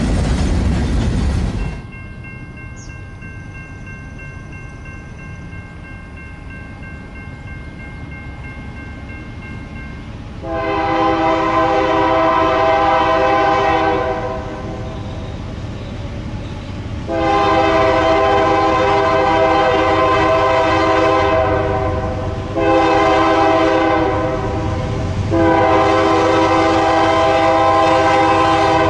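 A freight train rumbles past, then cuts off abruptly about two seconds in. Later a diesel locomotive's multi-chime air horn sounds four times: long, long, short, long, the grade-crossing signal.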